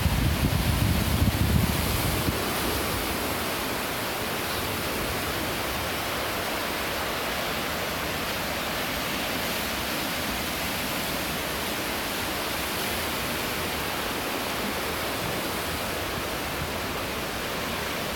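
Steady, even hiss of surf washing on the rocky shore. For the first two seconds wind buffets the microphone with a low rumble, then drops away, leaving only the flat hiss.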